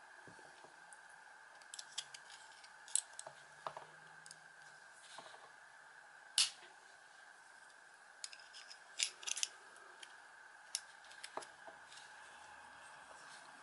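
Small metallic clicks and scrapes of a small screwdriver tip prying and poking at the inside of a small AC motor's metal housing and internal parts, irregular and spaced out, the sharpest click about six seconds in and a quick cluster around nine seconds, over a faint steady tone.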